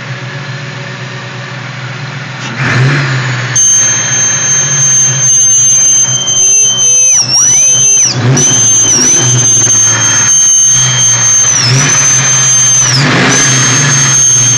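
Car engine running with a steady hum, then a loud, high-pitched squeal sets in about three seconds in. The squeal holds one pitch and dips briefly and springs back several times. It is the unidentified noise the owner is asking about.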